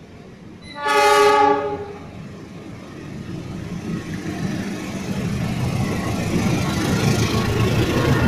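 A GE CC 206 diesel-electric locomotive sounds its horn once, a single blast of about a second. Its engine and wheels then rumble louder and louder as the train approaches and passes close by.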